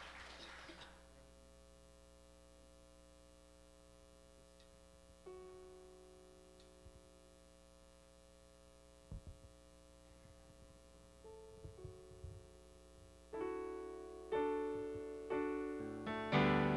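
Electric keyboard holding a soft sustained chord as the applause dies away, the chord changing about five seconds in. A few low thumps come in the middle, then struck piano-voiced chords begin about thirteen seconds in, each fading before the next, opening a song.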